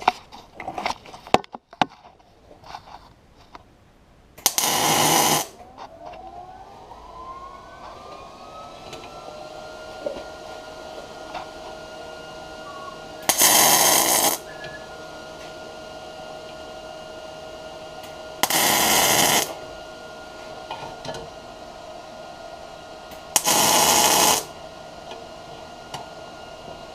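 Four short welding bursts, each about a second long, laying tack welds to fix a brake rotor onto its hub. Between them a steady whine holds, having risen in pitch after the first burst.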